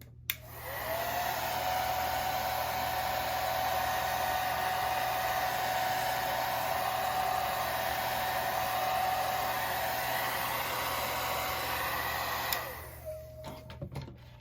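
Handheld hair dryer switched on with a click and blowing steadily with a motor whine for about twelve seconds, then switched off and winding down. It is drying freshly applied wig lace glue to make it tacky.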